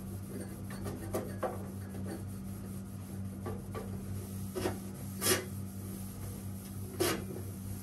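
Cloth wiping talcum powder and baking-soda residue off a gas stovetop, soft rubbing strokes with a few sharper scuffs, the loudest about five and seven seconds in, over a steady low hum.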